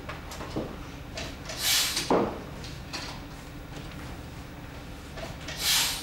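Steady workroom hum with a few light knocks and handling sounds. A short hissing rustle comes about one and a half seconds in, with a dull knock just after, and another rustle comes near the end.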